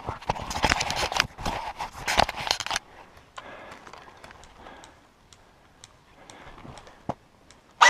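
Rattling, crunching and jangling of an airsoft player moving on foot with gear. It dies down about three seconds in to faint scattered clicks.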